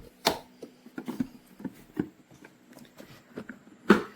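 Plastic parts of a cordless shop vac being handled, with scattered clicks and knocks. There is a sharper knock near the start and another near the end.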